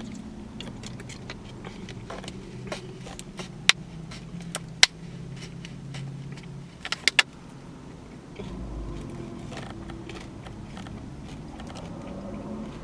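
A person eating: chewing, with a few sharp clicks and crackles about four and seven seconds in, over a steady low hum.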